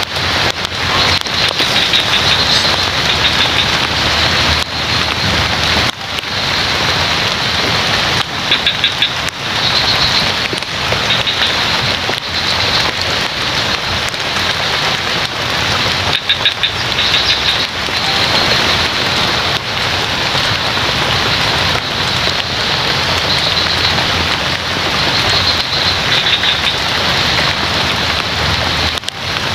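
Steady rain falling in a forest, with high, rapidly pulsed frog calls coming and going over the rain.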